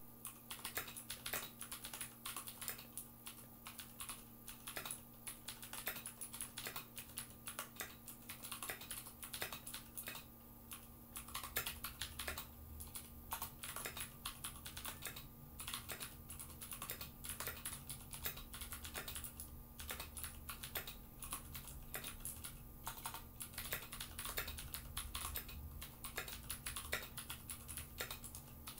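Typing on a Ducky One mechanical keyboard: quick runs of key clicks with short pauses between them, over a faint steady hum.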